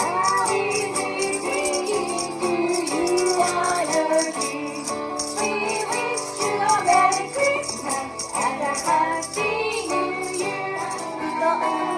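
Christmas song played live on ukulele, a wavering melody line over the chords, with jingle bells shaken steadily on the beat.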